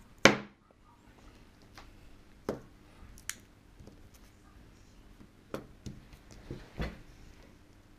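Handling sounds of iPhones being set down and moved about on a plastic-covered table: a sharp knock a third of a second in, the loudest, then a handful of softer taps and clicks.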